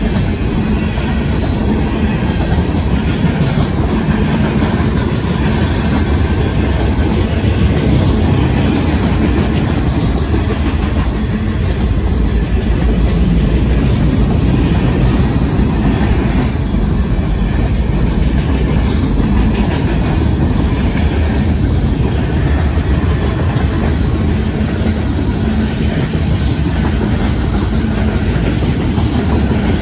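Freight cars of a passing train rolling by in a steady rumble, their wheels clattering over the rail. The crossing bells ring through it, the WCH mechanical bell sounding pretty rough.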